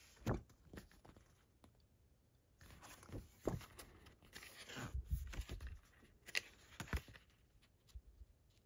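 Paper and card packaging of a Blu-ray box set being handled: soft rustling in two stretches, with a few light clicks and knocks.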